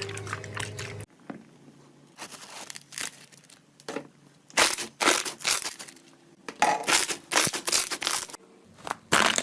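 Slime being squeezed and pressed by hand, heard as a run of short, separate crackling bursts after an abrupt change of sound about a second in.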